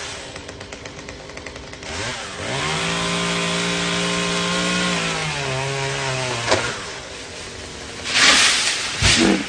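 Chainsaw engine revving up about two seconds in, holding a steady high pitch for a few seconds, then dropping to a lower speed. A sharp click follows, and near the end there is a loud burst of noise.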